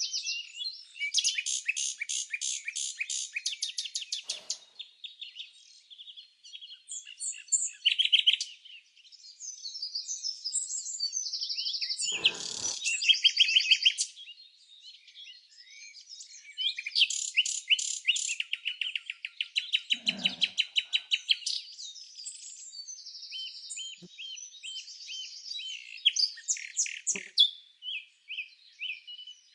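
Songbirds chirping and trilling, several calls overlapping, with fast runs of repeated high notes around 1 to 4 seconds, 12 to 14 seconds and 17 to 21 seconds in, and scattered shorter chirps between.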